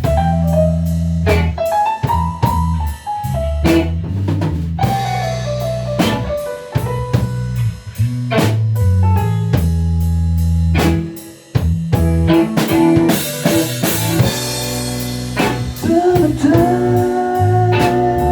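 A band playing a bluesy rock song live: drum kit, bass guitar and guitar, with a bending melodic line over the top. The band stops dead for a moment about 11 seconds in, then comes back in with a cymbal crash.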